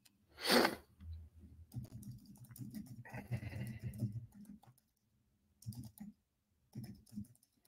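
Quiet computer keyboard typing and clicking, in a run of keystrokes over a couple of seconds and a few more clicks near the end. A short, loud breathy burst comes about half a second in, and faint low vocal sounds lie under the typing.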